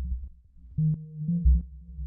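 Electronic acid techno from a Roland JU-06A synthesizer and a Roland TR-8 drum machine: deep bass pulses under a pitched synth line.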